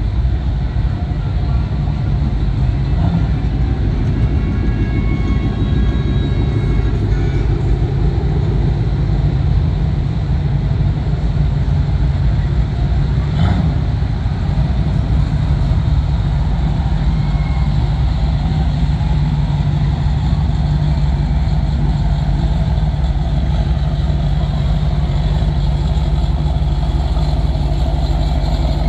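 Muscle car engines running: a steady, deep engine drone that goes on without a break, with a single short click about halfway through.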